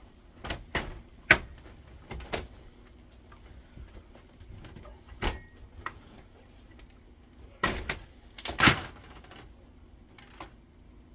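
Irregular sharp clicks and knocks of plastic and metal parts being handled and pried apart while an induction hob is dismantled, with a quick clatter of several knocks about eight seconds in.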